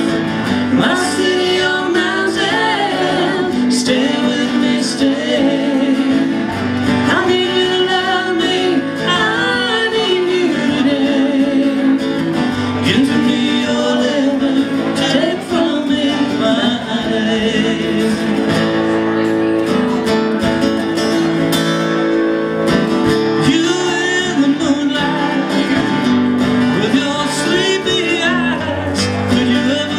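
Live band music: two acoustic guitars played with singing over them, at a steady level.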